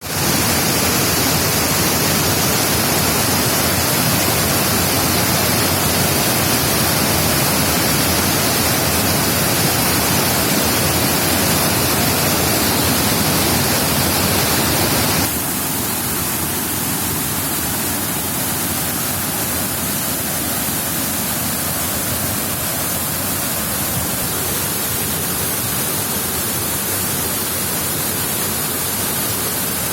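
Waterfall: a steady rush of falling water. About halfway through it suddenly becomes a little quieter and less hissy, then runs on evenly.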